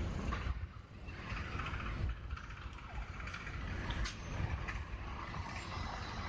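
Outdoor city street ambience: a steady low rumble of road traffic with uneven low surges and a few faint scattered clicks.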